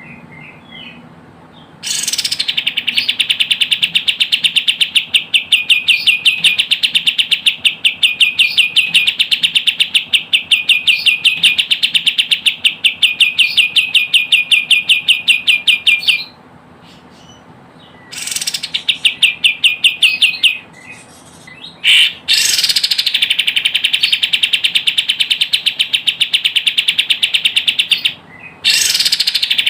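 Kapas tembak calling in long bouts of rapid, evenly repeated high notes, a fast chattering trill. The bouts break off for a second or two a few times and then start again. It is a looped lure recording made to draw in wild kapas tembak.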